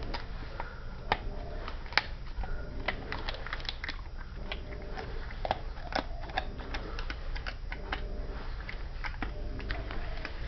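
Australian cattle dog chewing a dried pig's ear treat: irregular crunching and gnawing clicks.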